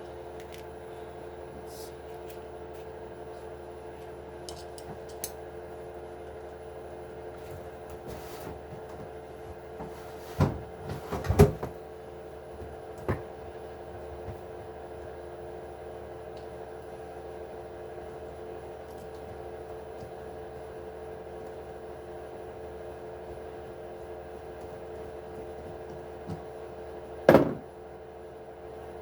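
Scattered knocks and clacks from an RC truck and tools being handled during disassembly: a cluster a third of the way in and one sharp knock near the end. Under them runs a steady hum.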